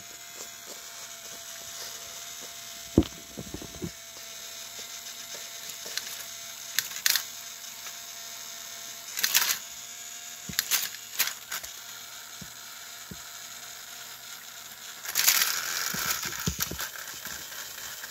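Small battery motors and plastic gears of toy trains whirring as two engines shove head-on against each other, with scattered clicks and knocks of plastic on plastic and a louder rattling clatter about three quarters of the way through.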